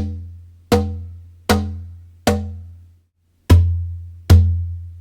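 Hand strikes on a solid mahogany Cajonico lap cajon: four evenly spaced strikes with a short ring, then after a brief pause a second run of louder strikes with a heavier, deeper low end, contrasting the instrument's higher slap side with its lower bass side.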